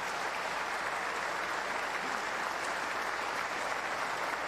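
Steady applause from a large seated audience, many people clapping at once in an even, continuous clatter.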